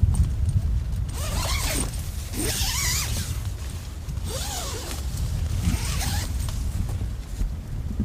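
Strong wind buffeting the microphone as a steady low rumble, with three bursts of rustling, rasping noise about a second, three seconds and six seconds in.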